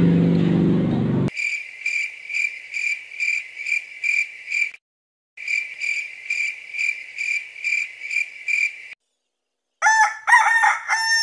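Cricket chirping: a shrill, steady trill pulsing about twice a second, which cuts off abruptly twice. Near the end a rooster crows.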